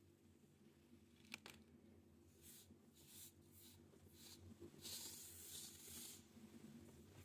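Kinetic sand being cut or pressed, giving faint soft crunching, hissing strokes, a few short ones and then a longer one about five seconds in, with a single small click early on, over a low steady hum.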